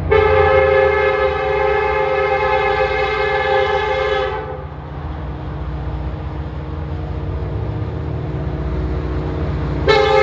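Approaching freight locomotive's air horn sounding for the crossing: one long blast of about four and a half seconds, then a second blast beginning near the end, over a low rumble.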